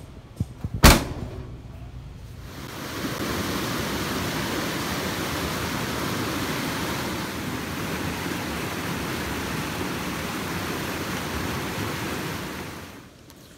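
A sharp knock about a second in, then the steady rush of whitewater river rapids, which fades out near the end.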